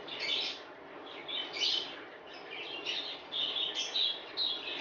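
Small birds chirping in quick, irregular short calls.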